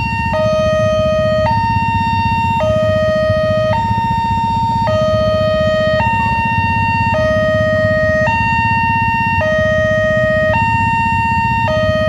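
Electronic railway level-crossing alarm of a new Wantech crossing system sounding its two-tone hi-lo warning, a lower and a higher tone alternating about once a second, the signal that a train is coming and the barrier is closing. A low rumble of idling motorcycle and car engines from the waiting traffic runs underneath.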